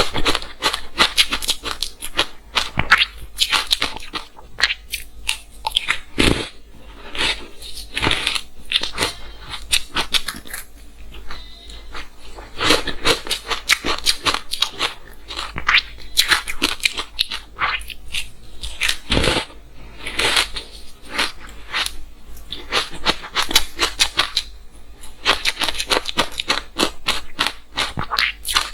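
Frozen matcha green tea ice bitten and chewed close to the microphone: dense crunching and cracking in clusters, with brief pauses between bites.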